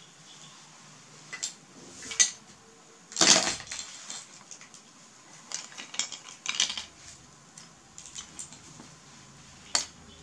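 Small hard objects clattering and knocking as baby monkeys handle their toys: a handful of sharp clacks, the loudest cluster about three seconds in, with quieter rustling between.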